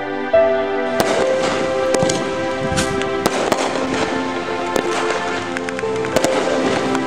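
Aerial fireworks crackling and popping in dense, irregular bursts from about a second in, over steady background music.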